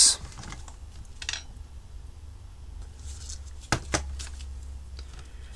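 A few faint handling taps and one sharp click about two thirds of the way through as a tiny surface-mount resistor is placed on the radio kit's circuit board, over a steady low hum.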